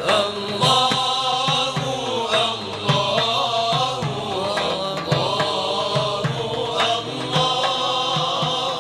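Islamic devotional chanting: a voice singing a melodic Arabic verse over a steady low rhythmic beat.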